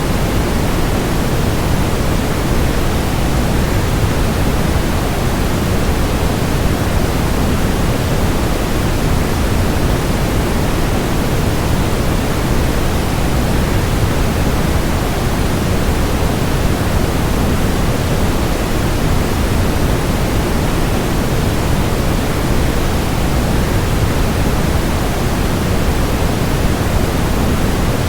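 A waterfall's steady rushing noise, even and unbroken, with most of its weight in the low, rumbling end.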